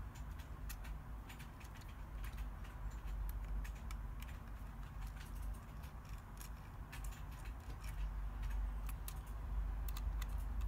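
Small screws being driven into a CNC case by hand, giving irregular light metallic clicks and ticks over a low background hum.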